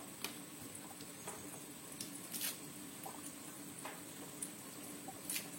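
Faint, scattered soft clicks and crackles of kitchen handling, about one a second, over a faint steady hum.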